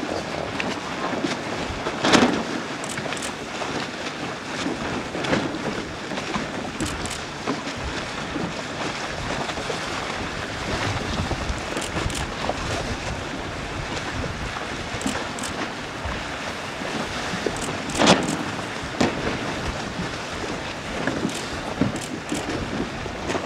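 Wind buffeting the microphone over choppy water, with water splashing and lapping around windsurf boards. Two louder sudden slaps or knocks stand out, about two seconds in and again about eighteen seconds in.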